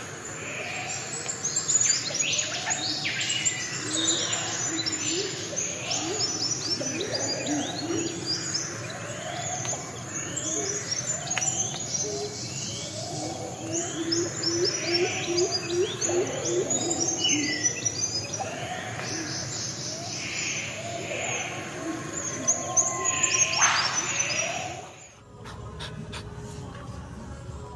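Many birds chirping and calling over one another in a dense, busy chorus, ending abruptly near the end.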